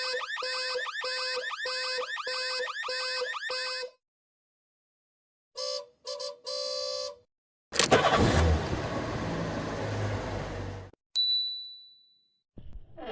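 A string of separate sound effects. First a pitched electronic alarm-like tone repeats about twice a second for four seconds. After a pause come three short beeps, then about three seconds of noisy rush with a low rumble, then a single high ring that fades away.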